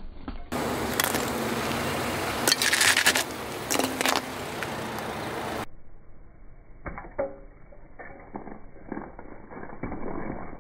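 Car tyre rolling over and crushing brittle toys: crunching and cracking of hard pieces under the wheel, with loud crunches a few seconds in, then quieter crackling and clicks.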